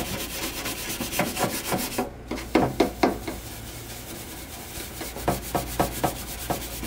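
Scrubby pad rubbing quickly back and forth over a pan coated in baking soda, scouring off brown stains at the pan's edges.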